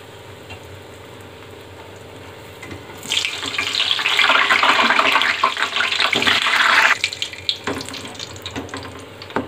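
A slice of bread deep-frying in hot oil in a kadhai, sizzling steadily. About three seconds in, while it is turned with a wire skimmer, the sizzle swells to a loud crackling hiss for about four seconds, then drops back suddenly.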